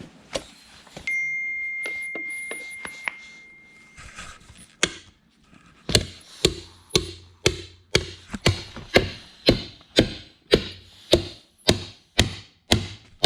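Hammer blows on an ATV wheel and tire, working the tire bead loose from the rim. A single knock about a second in leaves a high ring for a few seconds. After a few scattered knocks, steady strikes at about two a second begin some six seconds in.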